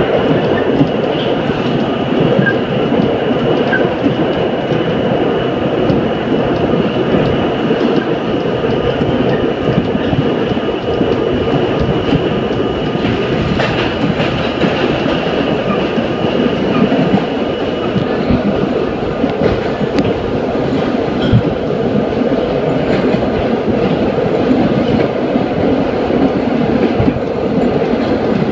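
R32 subway train running through a tunnel: a loud, steady rumble of steel wheels on rail with scattered rail-joint clicks, and a faint high steady whine over the first half or so.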